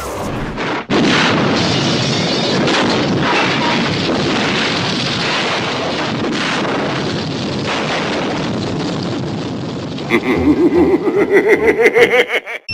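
A car exploding about a second in, followed by a long, dense roar of noise. Near the end a rapid pulsing sound rises in pitch and then cuts off abruptly.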